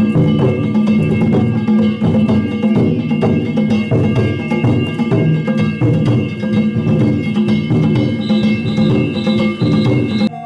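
Danjiri festival music: taiko drums beaten in a fast, dense rhythm, with small hand gongs ringing steadily over them.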